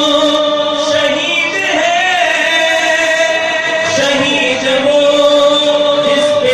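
A man singing an Urdu manqabat into a microphone, drawing out long held notes. The pitch glides about two seconds in, and a new note starts about four seconds in.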